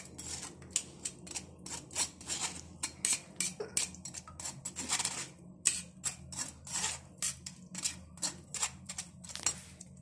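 Metal perforated spoon scraping and pressing tamarind pulp through a metal mesh strainer: a quick, irregular run of gritty metal-on-mesh scrapes and small clicks.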